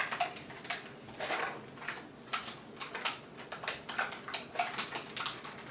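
Plastic Lunchables package being handled and opened: irregular crinkling and crackling of the plastic wrap and tray.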